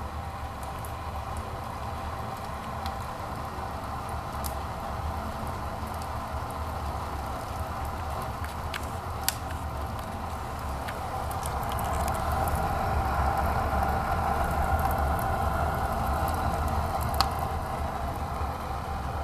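Wood fire burning in a cast-iron fireplace firebox under a strong draft: a steady rushing noise that swells about twelve seconds in, with a few sharp crackles.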